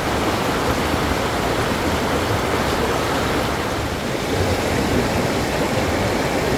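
Mountain creek water rushing steadily, loud enough to drown out a voice.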